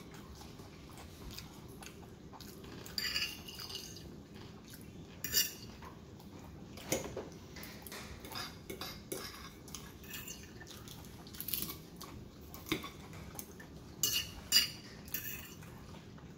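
Metal fork scraping and clinking against a ceramic dinner plate of rice and chips, in irregular strokes with quiet gaps between; the loudest clink comes near the end.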